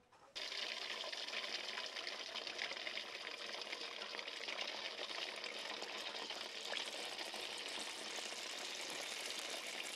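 Appam batter of ground rice and jaggery deep-frying in hot oil in a metal kadai. A dense, steady crackling sizzle starts suddenly just after the beginning as the batter goes into the oil.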